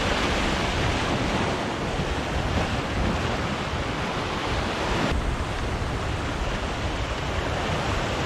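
Ocean surf washing in steadily, with wind noise on the microphone.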